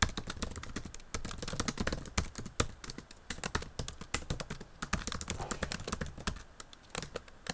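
Typing on a computer keyboard: a quick, uneven run of key clicks with a few short pauses.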